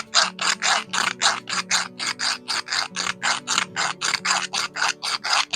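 Hand file rasping in quick, even back-and-forth strokes, about four a second, shaving material off a part so it will fit into place.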